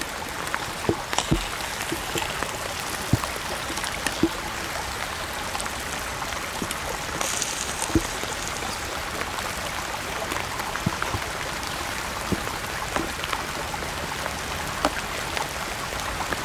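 Steady patter of rain, with scattered light clicks and scrapes of a metal spoon and fork breaking up corned beef in a titanium cooking pan.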